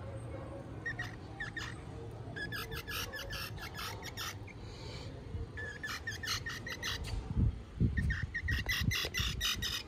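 Baby squirrel chirping: three bouts of quick, sharp chips, several a second, with low thumps in between near the later part.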